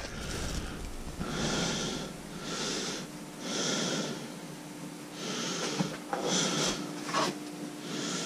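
A person breathing heavily close to the microphone, about one breath a second, with a couple of light knocks between breaths and a faint steady hum coming in about three seconds in.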